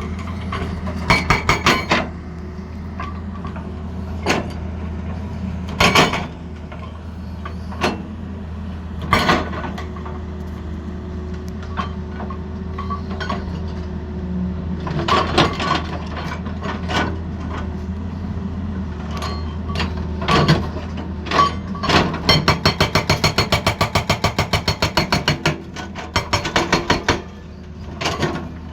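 Excavator diesel engine running steadily, with scattered sharp metallic clanks. About two-thirds of the way in, the hydraulic breaker starts hammering in a fast, even rhythm of about five blows a second.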